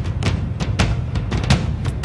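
Background music driven by drums and percussion, with a steady beat of about four hits a second over a heavy low end.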